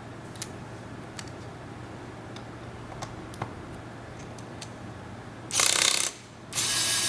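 Small electric torque screwdriver's motor and gearbox whirring in two short runs as it drives a screw in a laptop's bottom case, the second run about twice as long as the first. A few faint clicks come before.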